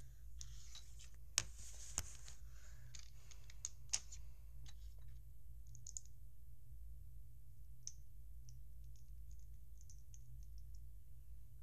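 Plastic LEGO bricks clicking as they are handled and pressed together, with three sharp snaps in the first four seconds and then lighter, scattered clicks, over a steady low hum.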